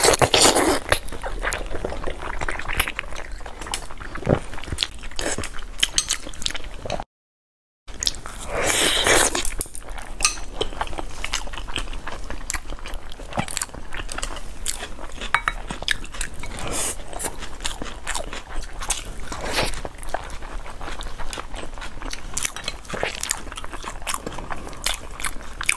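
Close-miked mouth sounds of someone biting, chewing and smacking on soft braised pork skin: a run of wet clicks, with a louder rush of noise at the start and again about nine seconds in. The sound cuts out completely for under a second about seven seconds in.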